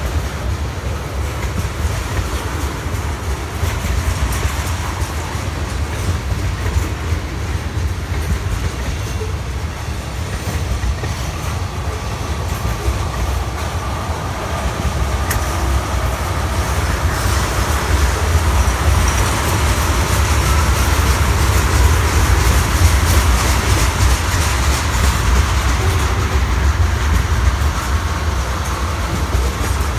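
Freight train of tank cars rolling past, the steel wheels rumbling steadily over the rails and getting somewhat louder in the second half. A faint wheel squeal rises in the middle.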